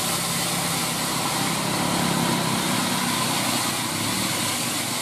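Bus engine idling steadily: a low, even hum under a broad hiss.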